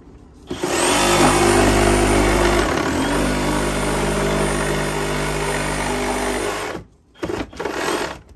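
Cordless reciprocating saw cutting through wooden wall boards: one long cut of about six seconds with a brief dip about a third of the way in, then it stops and two short bursts follow near the end.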